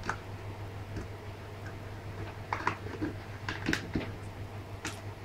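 The plastic back cover of a Lenovo A7000 phone being prised off by hand: a scattering of small clicks and snaps as its clips let go, the sharpest a little after halfway.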